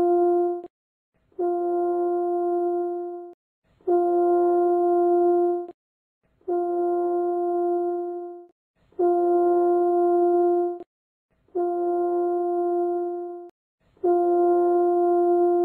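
A held horn-like tone of one steady pitch, each lasting about two seconds and repeated about every two and a half seconds with short silent gaps: a cue tone pacing an eye exercise, timing each shift of gaze.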